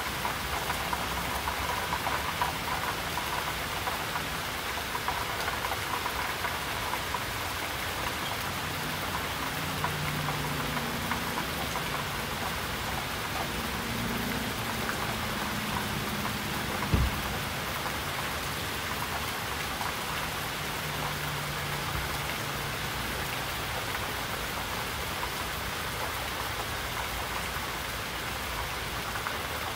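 Steady, heavy rainfall pattering on surfaces as an even, continuous hiss. A faint low hum comes and goes in the middle, and a single sharp knock sounds about halfway through.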